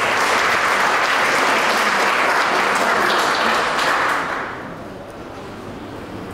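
Audience applauding, a dense patter of clapping that dies down after about four and a half seconds.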